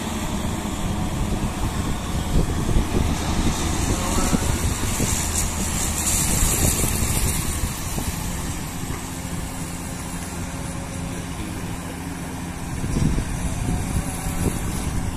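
Diesel engine of a Komatsu PC200 hydraulic excavator running steadily as the machine digs soil, a low rumble throughout. A louder hiss rises for a couple of seconds around the middle.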